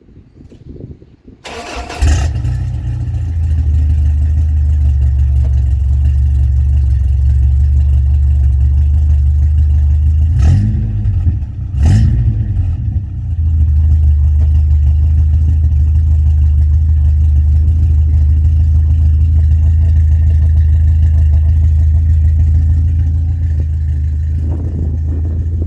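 1985 Toyota 4Runner's 22RE four-cylinder engine, breathing through a header, 3-inch pipe and a 40 series Flowmaster muffler. It starts about two seconds in and settles into a loud, low, steady idle. It is revved briefly twice around the middle.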